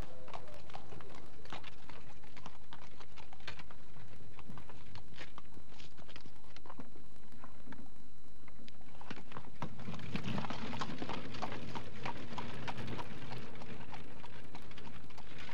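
Horse's hooves clopping and the wheels of a horse-drawn carriage rattling on a street: a run of irregular knocks that grows busier and fuller about ten seconds in.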